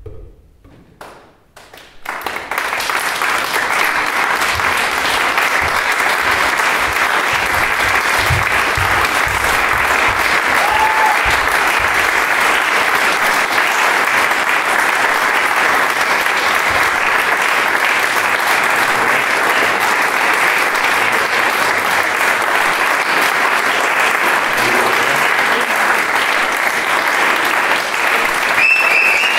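Audience applauding for a curtain call. The clapping breaks out suddenly about two seconds in and continues dense and steady, with a short high cheer near the end.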